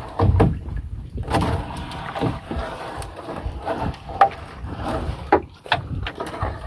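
Sinking gillnet being hauled aboard a small wooden fishing boat: irregular knocks and rustles of net and fish against the hull over a low rumble of wind and water.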